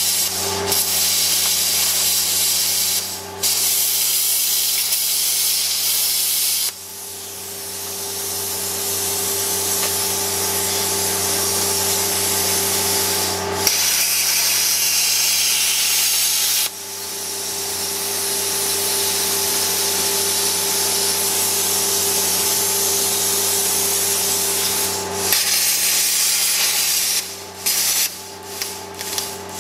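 Plasma cutter hissing steadily as its torch cuts along old welds in a steel tank hull, over a steady hum. The hiss breaks off at about 7 s and again at about 17 s and builds back up each time, and near the end it comes in short stop-start bursts.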